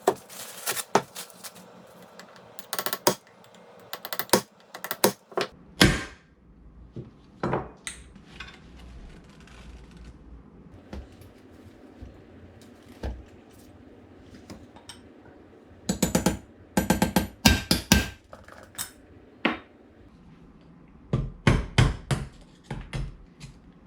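Hammer blows on a punch, driving a stuck pin out of a KitchenAid stand mixer's gear housing: sharp metallic taps in runs of several quick strikes, with pauses between runs. The pin is seized and slow to come out.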